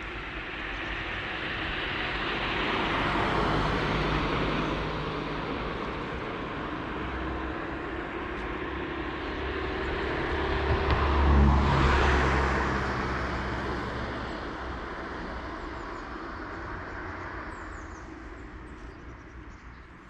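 Cars passing on a town street, tyre noise with engine hum. One goes by about three to four seconds in and a louder one about eleven to twelve seconds in, then the traffic sound fades.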